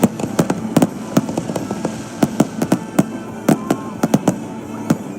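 Fireworks going off in a rapid, irregular string of sharp bangs, several a second, over music playing.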